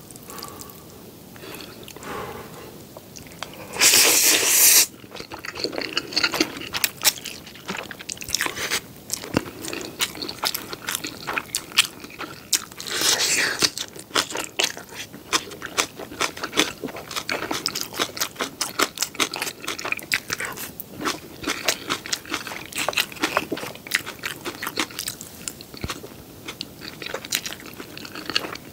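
Close-miked eating sounds from a person eating jjapaghetti black bean noodles and green onion kimchi. There is a loud slurp about four seconds in and another shorter one around thirteen seconds, followed by steady wet chewing with many quick, crisp crunching clicks.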